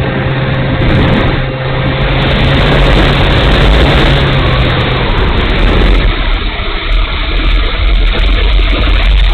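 Strong wind buffeting the microphone, with the steady hum of a small RC model warbird's motor and propeller that drops away about five seconds in.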